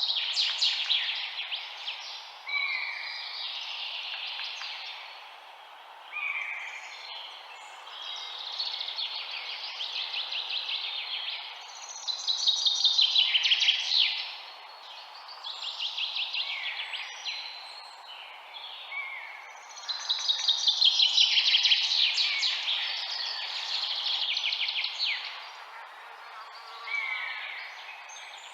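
Songbirds singing, overlapping phrases of rapid trilled notes lasting a second or two each, with short falling whistled notes between them, over a steady low hiss.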